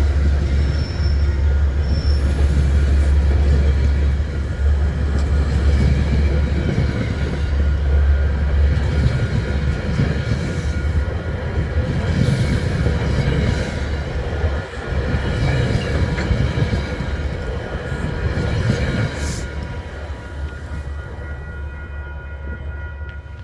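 Diesel commuter train passing close by, a heavy steady rumble with faint wheel squeal over the rails, slowly fading away over the last several seconds.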